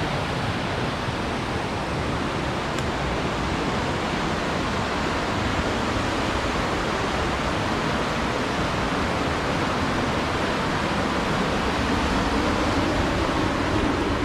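Water of a waterfall rushing steadily, an even noise with no break or change.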